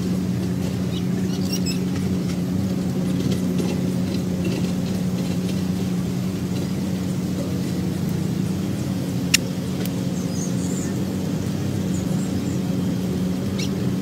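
A steady, loud, low motor hum. A sharp click comes about nine seconds in, and a few faint high chirps come shortly after.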